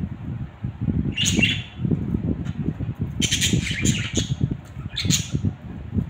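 Budgerigars chirping and squawking in short bursts: one about a second in, a longer run of calls from about three to four and a half seconds in, and another near five seconds, over a low rumble.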